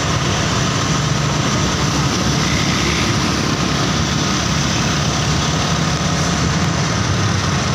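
A large bus engine running steadily with a low, even rumble.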